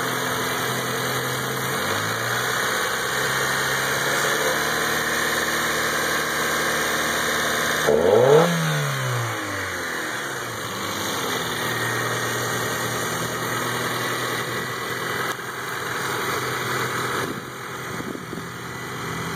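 1991 Honda CR-X Si's D16A6 1.6-litre four-cylinder running at idle after a fresh tune-up. There is a slight rise in revs about two seconds in, and one quick rev about eight seconds in that climbs and drops back to idle.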